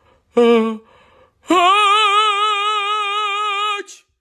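A sneeze performed as opera singing: a short sung "ah" with vibrato, a brief pause, then a long high note held with wide vibrato for about two seconds that breaks off abruptly.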